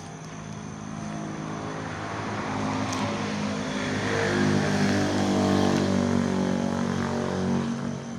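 A motor vehicle passing by, its engine and tyre noise growing louder to a peak about five seconds in, then fading away.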